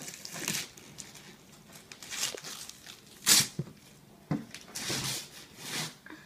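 Wrapping paper being ripped off a gift box in about five separate tears, the loudest about halfway through.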